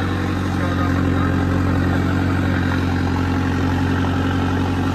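Tractor diesel engine running steadily at an even speed, heard from the driver's seat.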